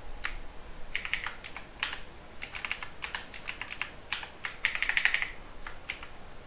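Typing on a computer keyboard: irregular single keystrokes and short runs, with a quick burst of many rapid strokes about five seconds in.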